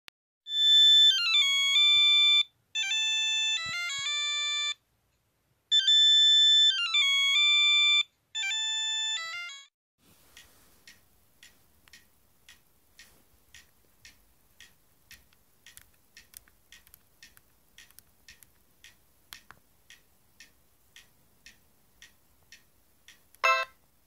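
An electronic ringtone-style melody of clean, stepped beeping tones, played twice over. It is followed by faint, regular clicks about twice a second as the BlackBerry 8700g is handled and its menu is scrolled. A short, loud burst of a ringtone comes from the phone's speaker near the end.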